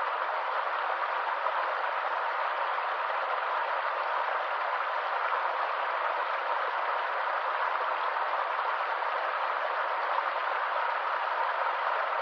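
A stream's water running in a steady, unbroken rush.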